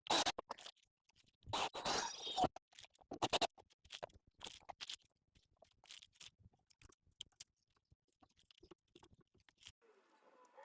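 Woodworking hand-work noise: short, separate bursts of scraping and clicking on timber, cut off by sudden silences. The loudest bursts come at the very start and around two seconds in, then they grow fainter and sparser.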